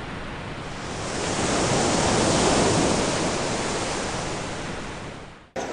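A rushing, surf-like noise that swells over the first couple of seconds, then fades and cuts off abruptly shortly before the end.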